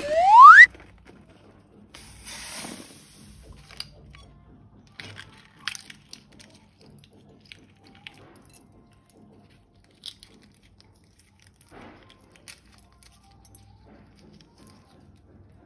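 A loud, short rising whistle right at the start, then quiet handling sounds of slime: a brief hiss about two seconds in and scattered faint squishes, clicks and crackles.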